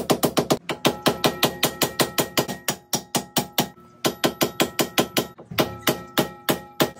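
Hammer rapidly whacking a screwdriver wedged behind a rusted-in rear wheel hub, about five metallic blows a second with a ringing note, pausing briefly twice. The hub is seized almost welded by corrosion, and the screwdriver is being driven in to wedge it loose.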